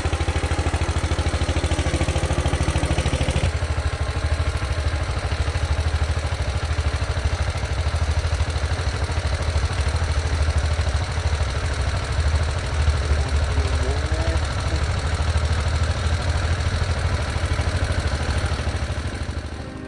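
Small tractor engine running steadily while the machine tills and loosens soil, with a rapid, even firing beat. About three and a half seconds in, the high clatter drops away and the sound becomes less harsh.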